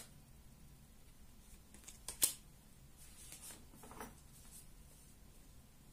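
Paper cards and a leaflet being handled: faint rustling and light taps, with one sharp tap about two seconds in.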